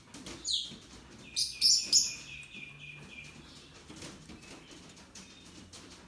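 Shrill parrot calls: a single falling squawk about half a second in, then a burst of loud, harsh calls over a held high note between about one and a half and three seconds in, followed by faint clicks.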